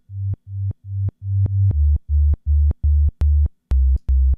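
Sine-wave bass from the Alchemy synthesizer playing short repeated low notes, about three a second. The first few notes swell in with a slow attack; from a little over a second in they start and stop abruptly. Each abrupt cut gives a sharp click, the sign of a zero attack and zero release in the amplitude envelope.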